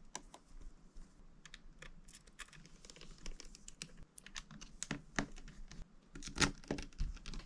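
Irregular light clicks and taps of small parts being handled and fitted into an opened MacBook Air, a few of them sharper near the end.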